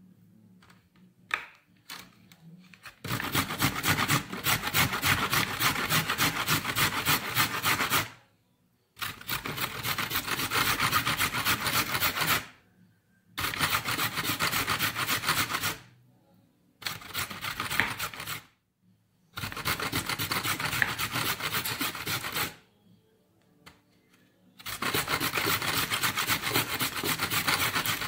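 A carrot grated on a stainless-steel box grater: fast back-and-forth rasping strokes in six runs of two to five seconds each, with short pauses between runs.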